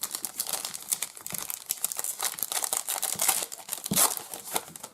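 A trading-card pack wrapper from a 2021 Donruss Optic baseball mega box being torn open and crinkled by hand: a dense, irregular crackling that dies away just before the end.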